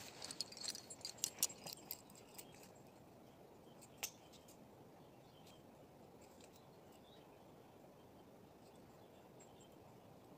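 Close rustling and sharp clicks as the recording phone is handled and set down in the grass, ending about two and a half seconds in, with one more click about four seconds in; then a faint steady outdoor background with a few small, distant clicks.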